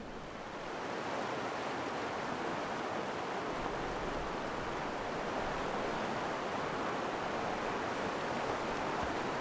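Fast mountain stream rushing over rocks: a steady water noise that swells up about a second in and then holds.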